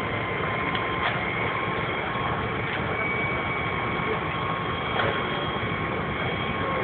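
Large fire burning: a steady rushing noise with a couple of sharp pops, about a second in and again near five seconds, over a faint steady high tone.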